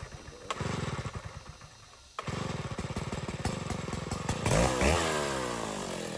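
Stihl two-stroke chainsaw being started: it fires and runs unevenly, cuts out about two seconds in, catches again at once and keeps running. About four and a half seconds in it is revved up in a quick rising whine, then drops back.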